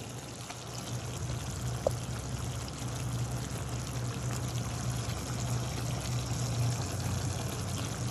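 Soy-and-cola BBQ sauce bubbling and sizzling in a frying pan as chicken feet simmer in it, over a steady low hum. One short tick about two seconds in.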